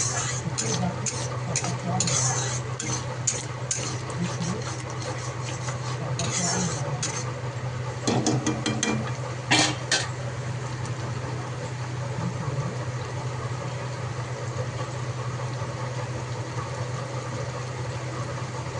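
A metal spatula scraping and clinking against a cooking pan as food is stirred, with quick knocks in the first half that thin out after about ten seconds. A steady low hum runs underneath.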